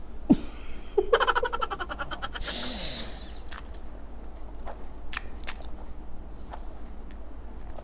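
A man's short laugh: a quick run of rapid pulses about a second in, ending in a breathy exhale, then a few faint mouth clicks as he chews.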